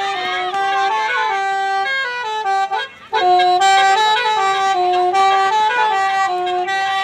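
Telolet musical bus horn (basuri type) playing a melody of steady, stepped notes. It cuts out briefly about three seconds in, then picks the tune up again louder.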